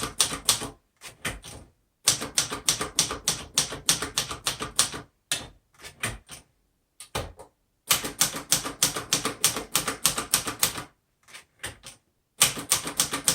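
Typing on a 1962 Royal Signet portable manual typewriter: runs of quick keystrokes, about six or seven a second, broken by short pauses with only a few scattered strokes.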